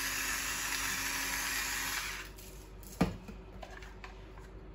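Electric salt grinder running in a steady whirr as it grinds salt, stopping about two seconds in. About a second later it is set down with a single knock on the counter.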